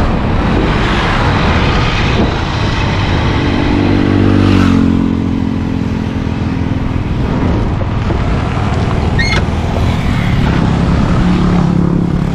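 Motorcycle on the move: steady wind and road rush with the engine note underneath. The engine note swells and eases off about four to seven seconds in, and comes up again near the end.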